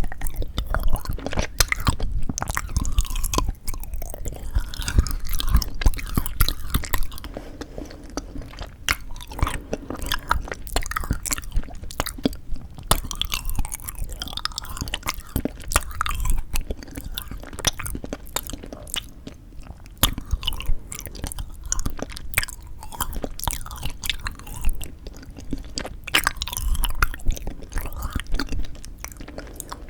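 Close-miked chewing and biting of frozen yanggaeng (sweet red bean jelly), with many irregular sharp mouth clicks and snaps.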